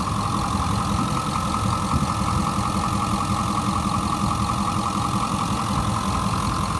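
Ford 6.4-litre Power Stroke V8 turbo diesel of a 2009 F-350 idling steadily, heard close up under the open hood, with a constant high tone above the engine note. It is warm after forty minutes at idle and runs smoothly.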